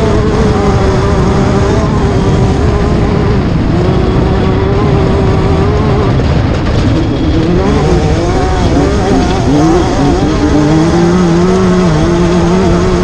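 Class 10 off-road race car engine running hard on a steady note, then revs rising and falling several times in quick succession around the middle before it settles back to a steady pitch near the end.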